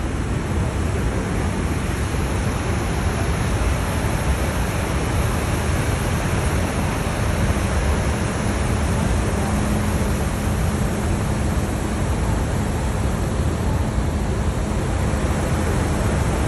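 Steady rushing noise of Niagara Falls, heavy water falling into the gorge.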